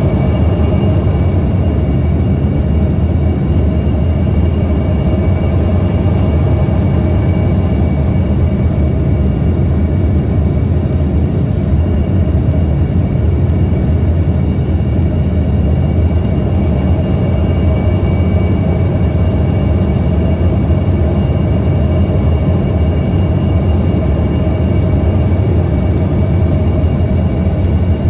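Steady cabin noise of an airliner descending to land, heard from inside the cabin: a loud, even rumble of engines and airflow, with a few faint steady whines above it.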